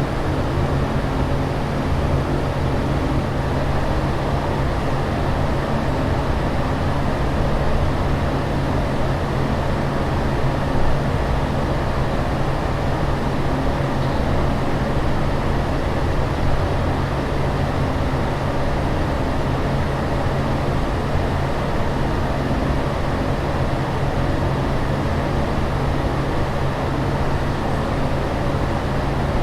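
Steady aircraft cabin noise in flight: a constant, even rush of air and engine with a low hum underneath.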